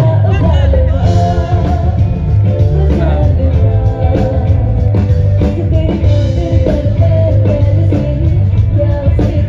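A live band playing loud through a stage PA system: a singer over a steady drum beat, a heavy bass and guitar.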